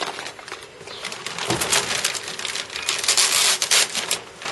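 Clear plastic bag being pulled open and handled, crinkling and rustling in irregular bursts, loudest about three seconds in.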